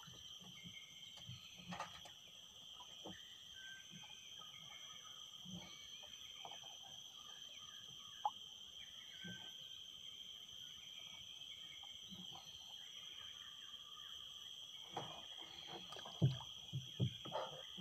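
Steady high drone of insects from the mangroves, with scattered short chirps over it. Near the end, a quick run of knocks and thumps stands out as the loudest sounds.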